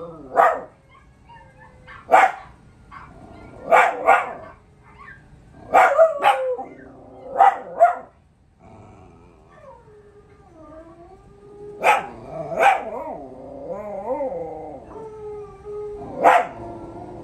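Dogs barking and howling: about a dozen short, sharp barks spread through, with wavering howls between them, mostly in the second half. A young dog howls along with recorded breed barks and howls played on a television.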